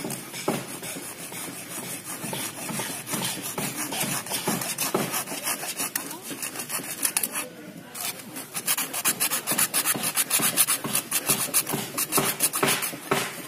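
A hand-held hacksaw blade sawing through grey PVC electrical conduit in rapid back-and-forth strokes. The strokes pause briefly about halfway through, then resume louder.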